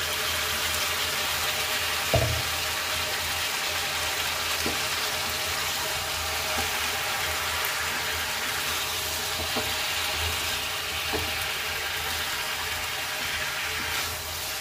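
Small brinjals, potato chunks and onion frying in hot oil in a pan, with a steady sizzle while a spatula stirs and turns the pieces. A sharp knock about two seconds in, with a few fainter ticks later.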